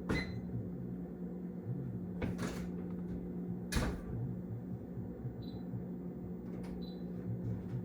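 A few sharp knocks and clatters of kitchen handling, near the start, at about two and a half seconds and just under four seconds in, over a steady low hum.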